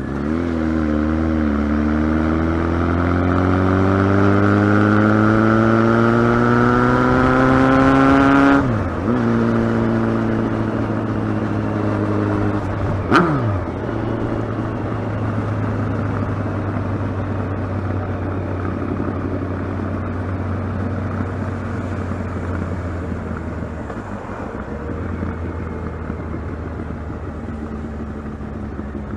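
Kawasaki ZX-12R's inline-four engine revving up steadily for about eight seconds, then dropping off suddenly. A single sharp crack comes a few seconds later, and the engine then runs on at steadier, lower revs.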